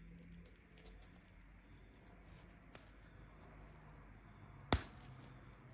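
Small plastic wheel parts of a diecast model car being handled and fitted by gloved hands: faint rustling, a light click near the middle and one louder sharp click about three-quarters of the way through.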